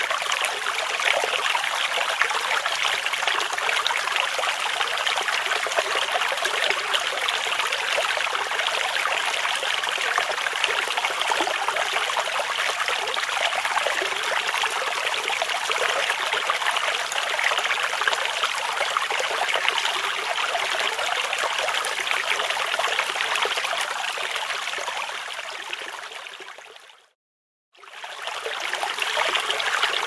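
Stream flowing over a shallow, rippled bed: a steady rush and trickle of running water. A few seconds before the end it fades out to a moment of silence, then fades back in.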